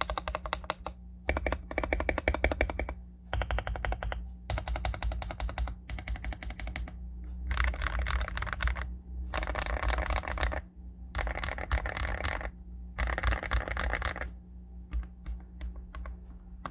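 Typing on a Feker IK75 mechanical keyboard with lubed Akko CS Lavender Purple switches on a polycarbonate plate, fitted with foam, tape and polyfill mods and SAL-profile keycaps. Fast runs of keystrokes come in bursts of a second or so with short pauses between them, and end in a few slower single key presses near the end.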